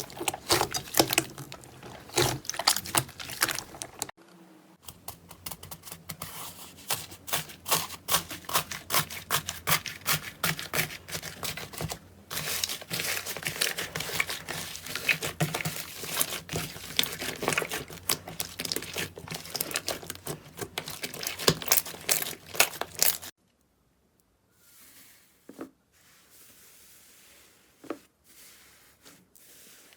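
Slime being squeezed and stretched by hand, giving a dense run of small crackles and pops. The sound breaks off briefly about four seconds in. About three-quarters of the way through it drops to faint, occasional soft pops.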